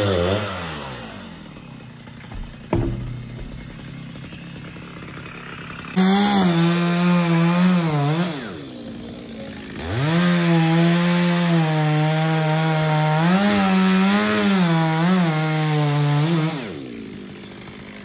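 Chainsaw coming down from high revs to idle, then opened to full throttle twice, for about two seconds and then about six, cutting into the base of a coconut palm trunk; the engine pitch dips and wobbles as the chain bites into the wood, then drops back to idle near the end.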